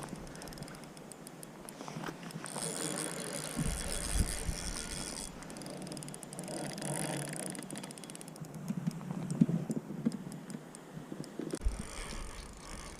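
Fishing reel ticking rapidly as line is reeled in and pulled against a strong fish, which the angler takes for a Chinook salmon.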